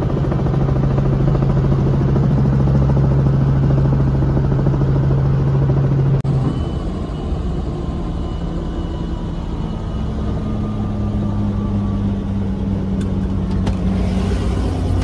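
Helicopter engine and main rotor running, heard inside the cabin as a loud, steady drone. About six seconds in the pitch of the drone shifts slightly.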